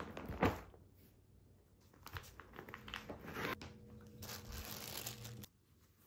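Clear vinyl zippered storage bag holding folded fabric sofa covers, landing on a rug with a brief thump about half a second in. The plastic then crinkles irregularly as the bag is opened and a cover is pulled out, and the crinkling stops suddenly shortly before the end.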